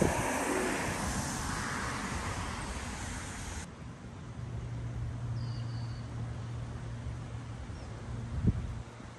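Wind buffeting the microphone, cut off sharply a few seconds in. Then a steady low drone, with a brief faint bird chirp and a single thump near the end.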